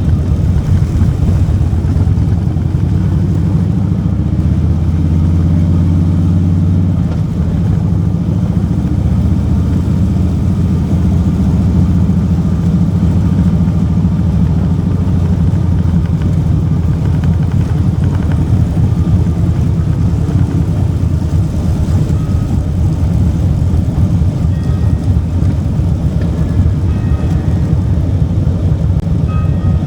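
Motorcycle engine running steadily while riding along the road, heard from the bike itself.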